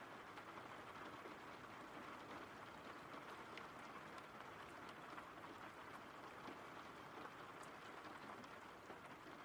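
Faint, steady rain: a soft even hiss with scattered drops ticking through it.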